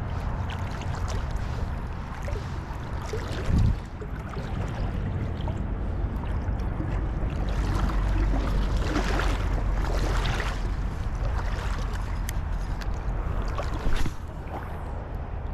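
River water sloshing and splashing, as around legs wading through a river, over a low rumble of wind on the microphone. A brief knock comes about three and a half seconds in, and another near the end.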